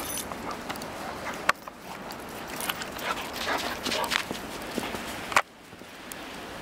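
A German Shorthaired Pointer running and bounding through snow, its paws crunching in quick, irregular footfalls. Two sharp knocks stand out, about one and a half seconds in and again near the end.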